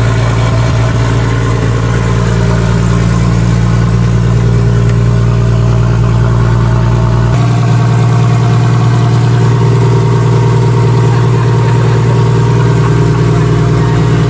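Nissan RB25DET turbocharged straight-six in an S15 Silvia idling steadily, running after its first start-up in nine months. The low rumble shifts slightly about seven seconds in.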